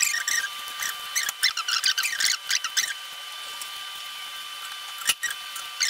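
Serrated hand peeler scraping the skin off a raw potato in quick, short strokes, thick in the first three seconds, then a pause broken by one sharp click, with more strokes near the end. A faint steady high-pitched tone runs underneath.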